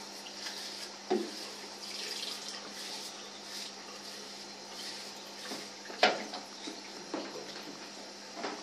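Tap water running steadily into a tub while a wet Yorkshire terrier puppy is scrubbed by hand, with a sharp knock about a second in and a louder one about six seconds in.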